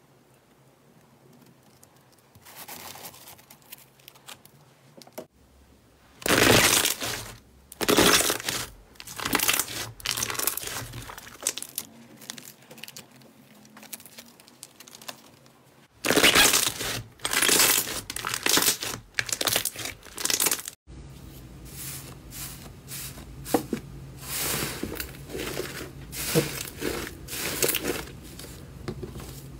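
Slime being pressed, stretched and pulled apart by hand, giving irregular bursts of sticky crackling and tearing sounds, faint at first and loudest in a few strong squeezes.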